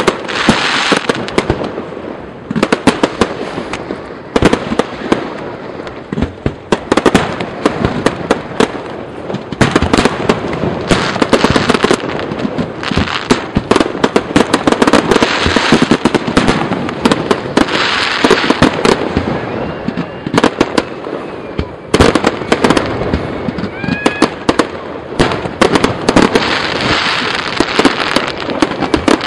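Fireworks display: aerial shells bursting in a dense, continuous run of sharp bangs and crackling, with a few short whistles about two-thirds through.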